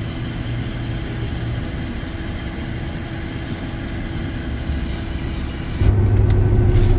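Pickup truck engine idling, heard from inside the cab. About six seconds in it jumps suddenly to a louder, steady drone of engine and road noise as the truck drives at speed.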